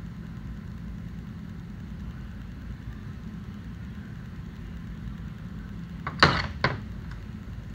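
A steady low hum in the shop. About six seconds in, two sharp metal clunks a moment apart as the steel shifting-tool body is handled on the metal workbench.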